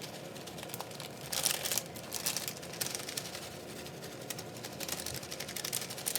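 Plastic packaging crinkling and rustling in quick irregular bursts as cheese is added, loudest about a second and a half in.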